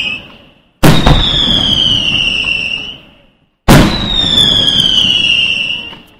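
Fireworks: two sharp bangs about three seconds apart, each followed by a high whistle that slides slowly downward for about two seconds over a rumble, then drops away to silence. A third bang comes at the very end.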